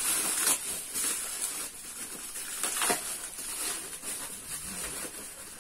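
Plastic bubble wrap crinkling and rustling as it is pulled off a rifle, in irregular crackling swipes, the loudest about three seconds in.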